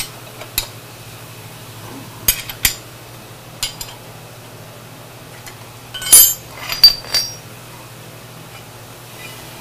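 Steel hold-down clamps, a wrench and milled steel plates clinking and clanking against a milling machine's cast-iron table as the clamps are loosened and the parts lifted off. The loudest clanks come about six to seven seconds in, over a steady low hum.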